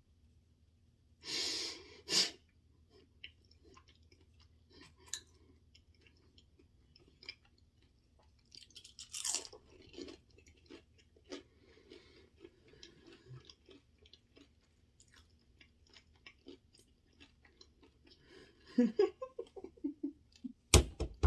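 Close-miked chewing of Chinese takeout food, with wet mouth clicks and smacks and a few louder bites or breaths, the loudest about a second and a half in. A loud thump near the end.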